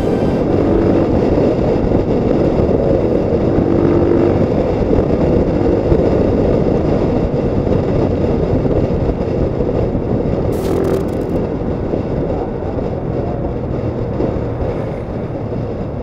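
Honda Tiger single-cylinder motorcycle on the move: steady engine hum under wind and road rumble at cruising speed.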